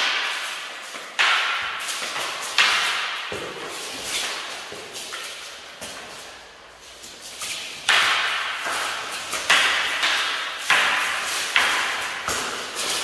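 Wooden training spears clacking together in sparring: a series of sharp knocks, about nine in all, each ringing out in a large echoing hall. A few come close together in the first seconds, then there is a lull, then a quicker cluster from about eight seconds on.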